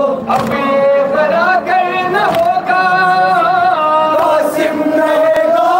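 A man's voice singing a Kashmiri noha, a Shia mourning lament, in long held notes that wind up and down in pitch.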